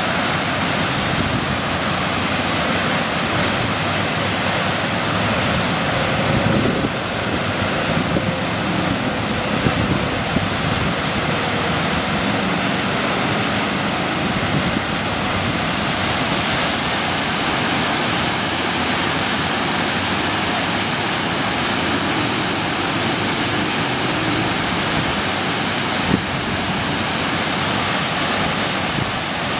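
Steady rush of a river's whitewater pouring over a standing play wave, with a few brief louder moments near the middle and one near the end.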